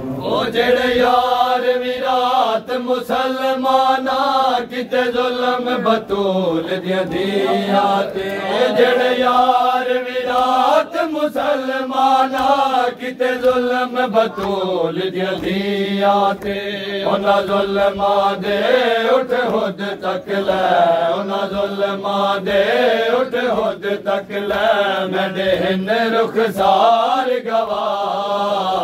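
Men's voices chanting a noha (Shia lament) together in unison, long held notes stepping down in pitch, with many short sharp slaps of matam, hands beating on chests, keeping time beneath.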